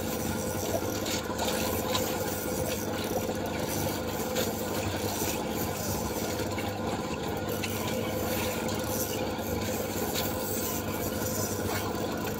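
Spinning reel being cranked steadily, a continuous rasping whir from its gears and line roller, over a steady low hum.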